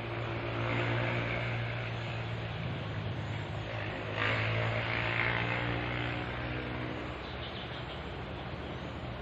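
Vehicles passing over a bridge: an engine hum swells and fades about a second in, then a second vehicle comes up more sharply about four seconds in and fades away, over a steady rushing noise.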